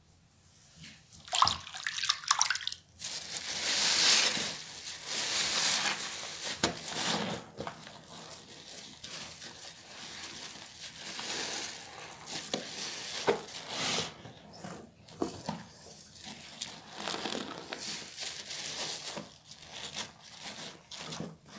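A soap-soaked sponge squeezed and rubbed by hand in a sink of sudsy water: irregular wet squelches, sloshes and drips, starting after a brief quiet moment.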